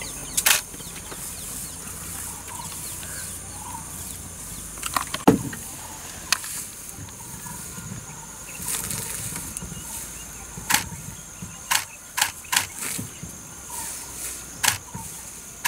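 Wild Asian elephant feeding on a bush: scattered sharp snaps of twigs breaking and rustling of leaves, about ten in all, with the loudest near the middle. Under them a steady high drone of insects.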